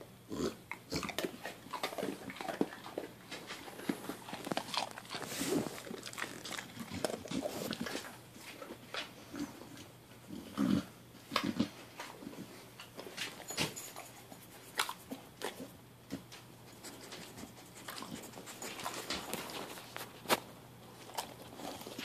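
Pit bull chewing a hard treat: irregular crunches, chomps and mouth smacks, some louder than others.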